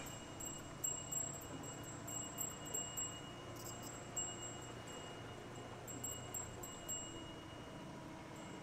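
Wind chime tinkling now and then, with light strikes a second or so apart and a few long ringing tones drawn out between them. A faint low hum runs underneath.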